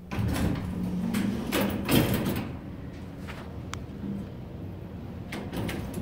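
Elevator doors sliding, a rumbling stretch of a couple of seconds over a low steady hum, followed by a single sharp click a little later.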